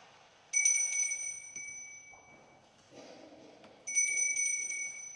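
Altar bells shaken twice, a short ringing peal about half a second in and another near four seconds in, each fading over a second or two. They mark the elevation of the chalice at the consecration of the Mass.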